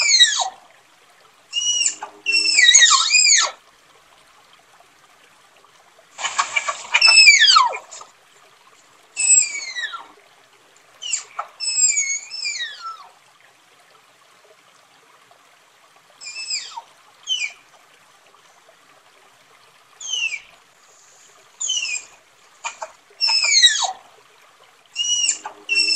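Tapir calling: shrill, high-pitched whistling squeals, each gliding steeply down in pitch, in short bouts of several calls. The bouts are separated by pauses of one to three seconds. The loudest bout, about six seconds in, has a raspy edge.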